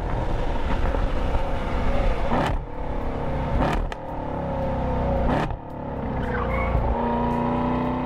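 A racing car engine at high revs under hard acceleration, its pitch changing sharply three times, about two and a half, four and five and a half seconds in.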